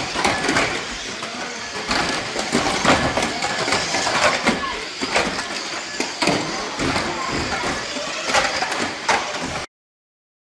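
RC banger cars racing on a carpet track: a busy rumble of motors and tyres, broken by many sharp knocks as the plastic bodies hit each other and the barriers. The sound cuts off suddenly near the end.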